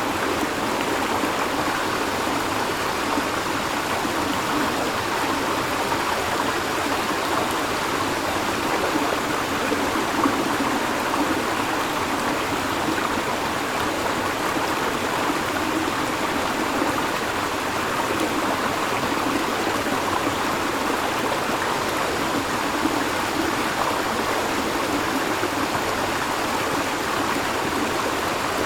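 River water flowing over rocks, a steady, continuous rushing and babbling with no breaks.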